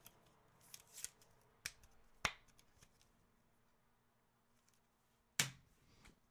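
Faint sharp clicks and taps of plastic trading-card holders being handled and set down on a wooden table: a few light clicks in the first couple of seconds and a louder click about five seconds in.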